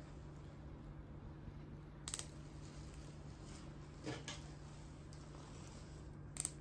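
Quiet room tone with a steady low hum, broken by a few small handling clicks: a quick cluster about two seconds in, a softer knock around four seconds, and another click near the end.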